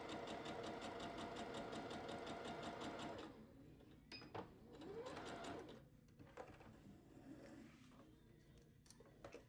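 Electric sewing machine stitching cotton gingham at a fast, even rate, then stopping about three seconds in. A few light clicks and quiet handling sounds follow.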